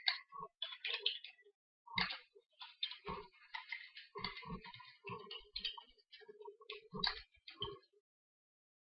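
Computer keyboard typing: irregular key clicks at an uneven pace, stopping near the end.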